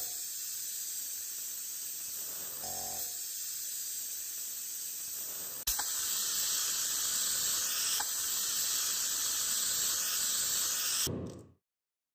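Steady spraying hiss that gets louder after a sharp click about halfway through, then stops abruptly near the end.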